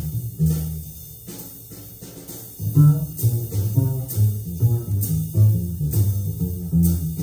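Jazz recording: a plucked double bass plays a line low in the register, with light, regular cymbal taps above it. The bass fades out about a second in and comes back strongly near three seconds in.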